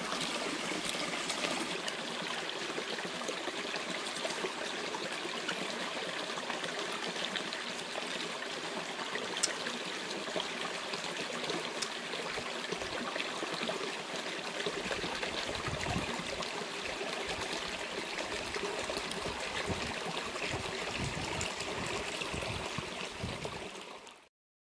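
Steady rush of a flowing stream, with a few soft low knocks in the second half, cutting off suddenly near the end.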